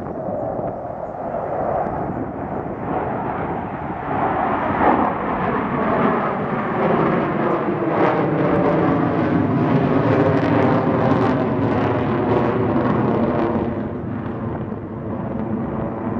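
Four Blue Angels F/A-18 Hornet jets passing overhead in formation: a steady jet roar that swells about four seconds in, stays loud with a phasing, sweeping quality through the middle, then eases off near the end.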